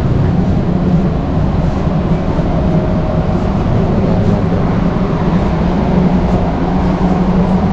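Steady low rumble of a big warehouse store's background noise, with no single clear event standing out.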